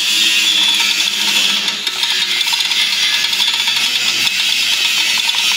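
Light metal clicking and rattling from a small gear being handled and turned on its shaft at the open front of a diesel engine block. A steady, loud hiss runs beneath it throughout.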